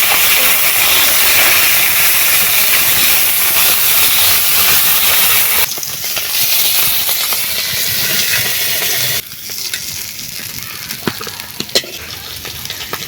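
Fish frying in hot mustard oil in a kadai, a loud steady sizzle that drops sharply in level twice. A few spatula clicks and scrapes come in the last few seconds.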